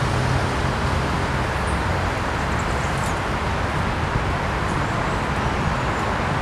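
Steady hum of road traffic from beyond the park, an even wash of noise with no single vehicle standing out.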